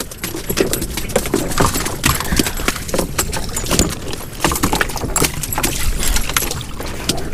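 Irregular knocks, clatters and rattles of a freshly caught lingcod and fishing gear being handled on a small fiberglass boat's deck as the fish is brought aboard.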